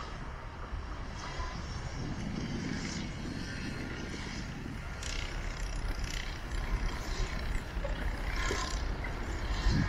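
Street ambience: road traffic rumbling past, rising and falling in level.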